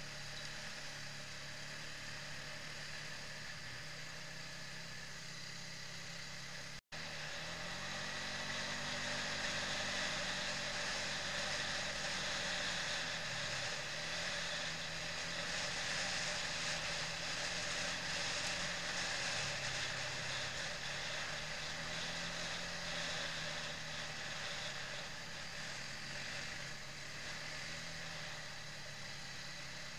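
Quad bike (ATV) engine running under way, heard from on board, its pitch rising and falling with the throttle over a steady rushing hiss. A brief cut-out about seven seconds in, after which it is louder.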